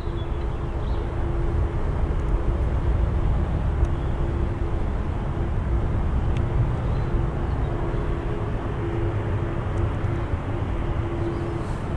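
Airbus A350-900's Rolls-Royce Trent XWB turbofans running at taxi power, a steady low rumble with a faint constant hum.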